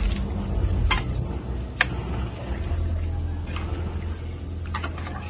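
A metal ladle clinks against an aluminium stockpot while stirring noodles and vegetables in broth. There are a few sharp clinks, the loudest about two seconds in, over a steady low rumble.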